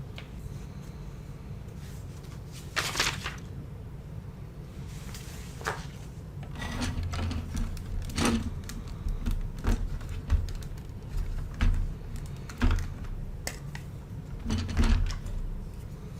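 Plastic Lego bricks clicking and rattling as pieces are handled and pressed together: irregular short clicks and knocks, some in quick little clusters, over a steady low hum.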